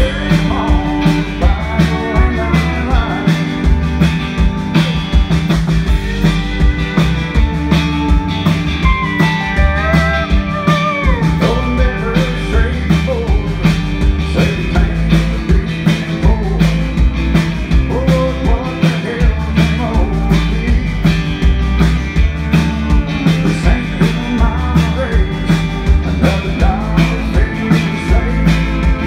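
Live country-rock band playing: electric guitar, electric bass and drum kit, with a steady beat.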